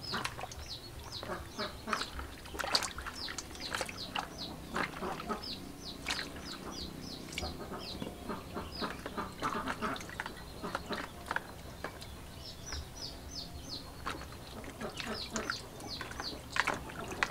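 Birds calling in long runs of short, high, falling chirps, several a second, with louder short calls lower in pitch scattered among them.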